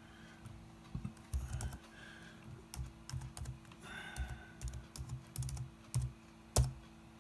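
Typing on a Dell Studio laptop keyboard: irregular runs of key clicks, with one sharper keystroke near the end, over a faint steady hum.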